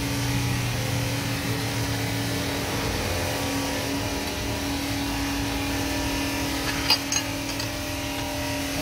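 A steady mechanical hum, like a running motor or engine, with two sharp metallic clicks about seven seconds in.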